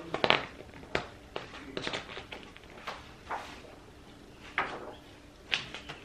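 Paper rustling as pages of an instruction booklet are turned, with a few light knocks and clicks of plastic parts being handled.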